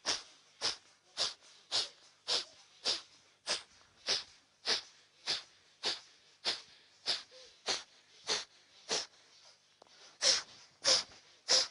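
Short, sharp exhalations forced out through one nostril while the other is held closed, in an even rhythm of about one puff every 0.6 s. This is the kapalbhati-style single-nostril breathing used to clear mucus and open the nasal passage.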